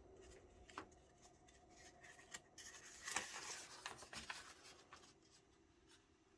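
Faint rustling and crinkling of a paper instruction sheet being handled and turned over, with a few light clicks and a brief louder rustle about halfway through.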